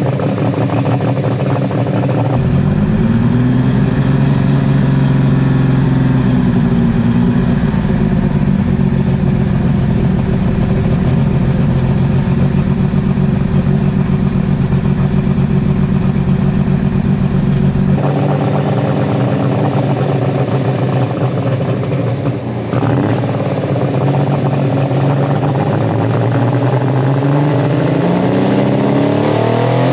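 Superstock pulling tractor's diesel engine running at idle, revved up and back down a few seconds in, then revving up again near the end.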